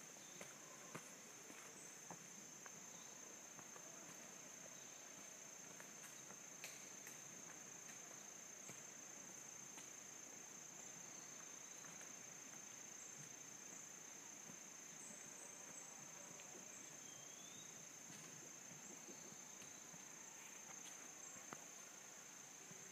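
Steady, high-pitched insect chorus, a continuous shrill trill, with a few faint footsteps on the dirt trail in the first seconds.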